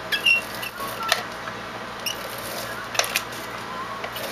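Plastic storage case being handled over a craft table: scattered light clicks and taps about once a second.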